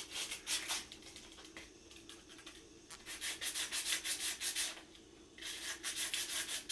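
Hand sanding of a 3D-printed plastic model part: quick back-and-forth strokes, about five a second, in three bouts with short pauses between them.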